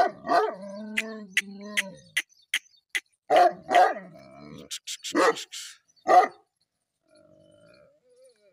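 A Pakistani bully dog barking about six times, deep single and paired barks. Between the first barks there is a longer, low, held sound and a run of sharp ticks about two or three a second.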